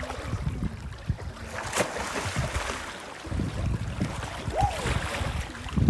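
Wind buffeting the microphone, heavier from about halfway in, over shallow seawater lapping and sloshing around people wading, with a few small splashes.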